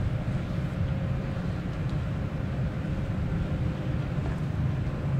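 Steady low droning room tone of a large airport terminal hall, the hum of its ventilation and building machinery.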